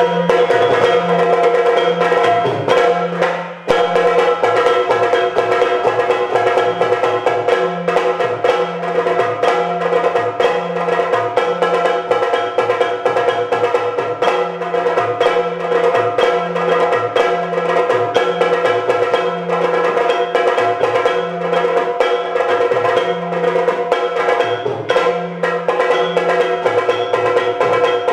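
Yakshagana instrumental accompaniment: drums led by the stick-played chende beating a fast dance rhythm over a steady drone.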